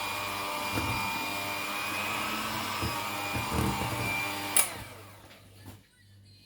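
Electric mixer running steadily in cake batter, then switched off with a click about four and a half seconds in and winding down, followed by a few light knocks.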